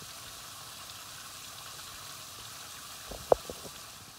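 Mutton pieces sizzling in a steel karahi with a steady hiss as the water the meat has released cooks off. A short, sharp knock comes a little over three seconds in.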